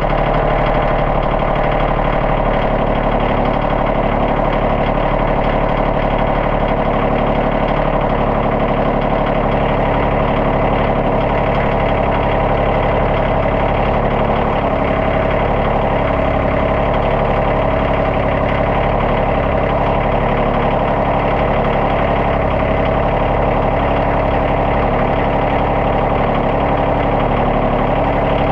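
Kioti CK2610 compact tractor's three-cylinder diesel engine running steadily as the tractor drives, heard from the operator's seat.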